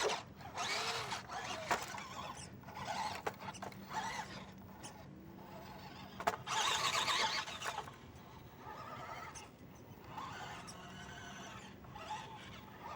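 Electric motor and drivetrain of a 6×6 RC truck whining in irregular bursts as it is driven, speeding up and slowing down. The loudest bursts come at the very start and about halfway through.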